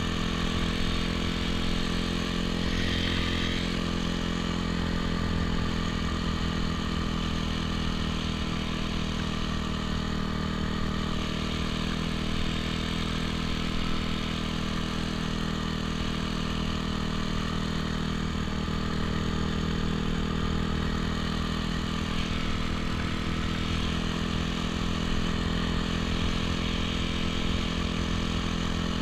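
Honda CRF250R dirt bike's single-cylinder four-stroke engine running at a steady, fairly constant speed while the bike cruises along.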